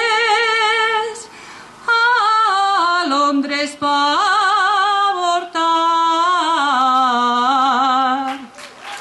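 A woman singing a jota unaccompanied into a microphone, with long, ornamented notes that waver in pitch. After a short breath about a second in, the phrase winds downward and ends on a long low note just before the end.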